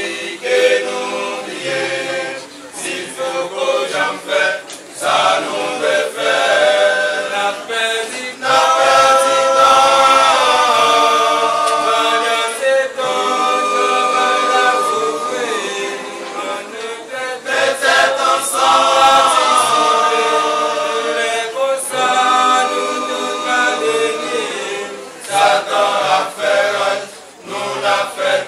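A small group of men singing a hymn together a cappella, in phrases with long held notes.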